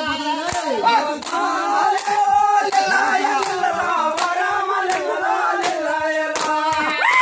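Voices singing in long, held, wavering notes, with sharp hand claps at irregular intervals.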